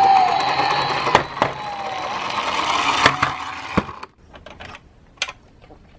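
A toy police car's electronic siren tone drops in pitch and dies away at the start. Then the toy car rattles as it rolls down a plastic slope, with a few sharp clicks and knocks, and stops about four seconds in.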